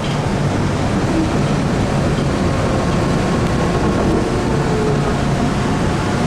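Steady running noise heard inside an MBTA Orange Line CRRC subway car while the train is moving: an even rumble of wheels on rail, with faint steady tones above it.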